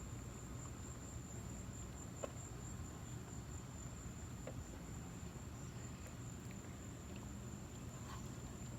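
Crickets trilling in a steady high tone over a low background hum, with a few faint clicks.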